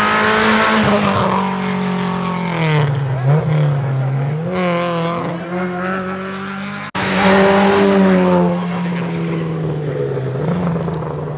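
Rally cars at full speed on a tarmac stage, engines revving hard. The engine note drops about two to three seconds in as the car brakes for a corner, then climbs again as it accelerates away. Another car's engine cuts in suddenly about seven seconds in, also revving high, then falls away.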